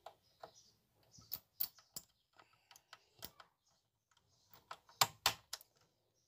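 Small screwdriver tightening screws into the front chassis plate of a 1:18 diecast model car: scattered light clicks and ticks of the tool turning in the screw heads, the loudest pair about five seconds in.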